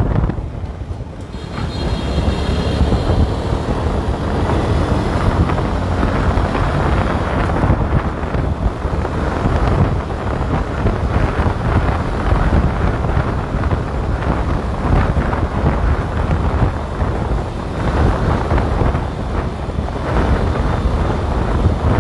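Wind buffeting the microphone of a camera moving fast along a road, over a steady rumble of vehicle engine and tyre noise.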